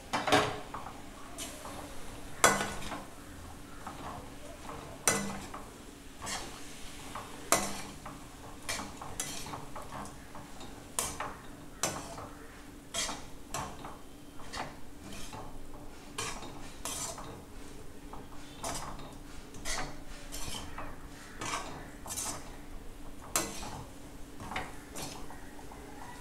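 Perforated steel ladle stirring and scraping fried cauliflower pieces around a metal kadai, tossing them in the pepper-onion masala to coat: irregular metal clinks and scrapes about once or twice a second, a few sharper knocks standing out.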